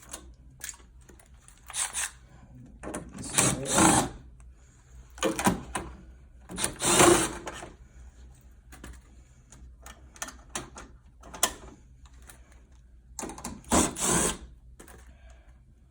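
Several short bursts of a power drill/driver working screws, among clicks and rattles of plastic and sheet-metal panels being handled while a PTAC air conditioner is taken apart.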